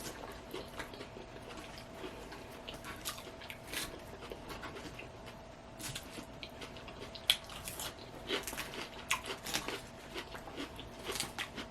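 A person chewing and biting crunchy salad close to the microphone: irregular small crunches and mouth clicks, over a faint steady hum.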